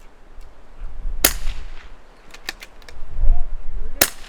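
.22LR rifle fired twice, about three seconds apart; the first shot rings on briefly after the crack. A few faint clicks fall between the shots.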